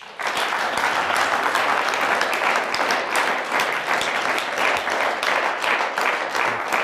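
Studio audience applauding: many hands clapping in a dense, steady patter that begins suddenly.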